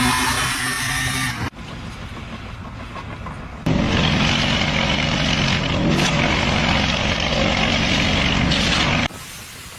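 Heavy machinery running, a steady loud mechanical noise that cuts abruptly to quieter and louder stretches several times.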